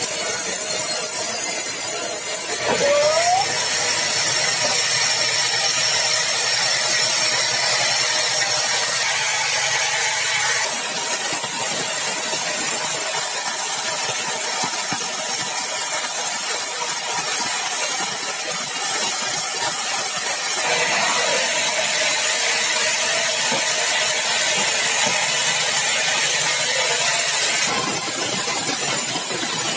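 Sawmill saw running steadily, cutting through a large log of hard, dry bengkirai (balau) timber. The steady noise changes character abruptly a few times, and a short rising whine comes about three seconds in.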